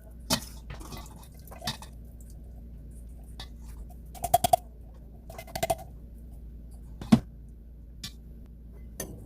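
Kitchen utensils and dishes clinking during food prep: scattered sharp clicks, with two quick runs of taps about four and five and a half seconds in and a single louder knock about seven seconds in.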